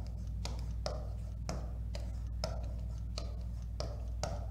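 Marker pen writing on a whiteboard: a quick series of short scratchy strokes, about two or three a second, over a steady low hum.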